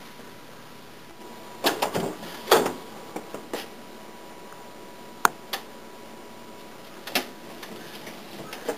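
Plastic coat hangers clacking on a wire closet rod as coats are pushed along and pulled out, with clothing rustling. A louder cluster of knocks comes about two seconds in, then single sharp clicks a few seconds apart.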